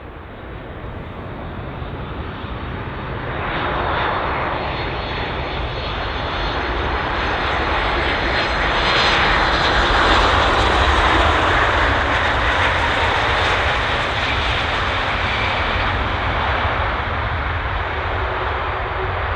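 Jet engines of a TUI Boeing 737 airliner on final approach and landing, passing close by. The engine noise swells to its loudest about halfway through, then eases slightly but stays loud.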